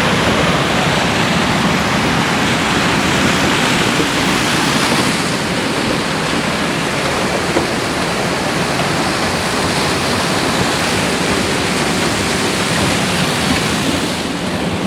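Claas combine harvester running through standing corn, heard close up: a loud, steady rushing noise of machine and crop with no distinct engine note.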